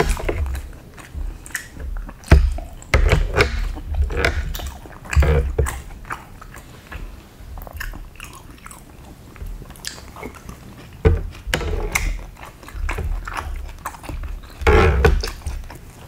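Close-up chewing and biting on bakso meatballs, with irregular short clicks and low thumps throughout.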